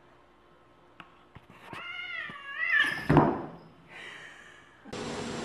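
A domestic cat gives a drawn-out, wavering meow that swells and ends in a loud thump about three seconds in, followed by a short hiss.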